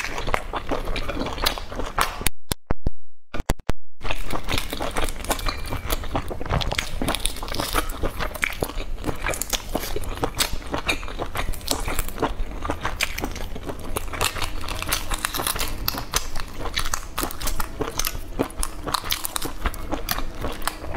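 Shells of boiled eggs being cracked and peeled off by hand close to a lapel microphone, a dense run of small crackles and clicks, mixed with chewing. The sound briefly cuts out about two seconds in.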